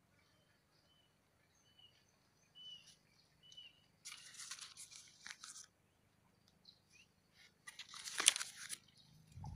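Rustling and crunching of dry leaves and foliage in two bursts, the second one louder, after a few faint short bird chirps.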